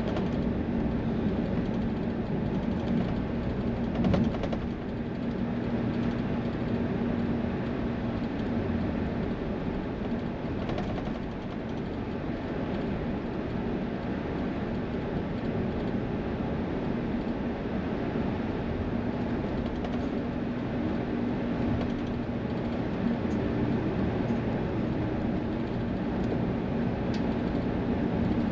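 Steady highway vehicle noise: engine drone and road noise with a low hum held throughout, and a brief knock about four seconds in.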